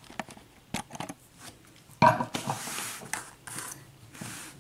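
Padlock and metal tools being handled: scattered light clicks and clinks, with a louder knock about two seconds in.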